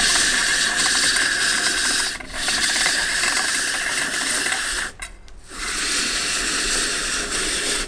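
Hand-cranked rotary drum grater with a fine-shred drum grinding green papaya into fine noodles: a steady rasping crank noise. It breaks briefly about two seconds in and pauses again around five seconds in.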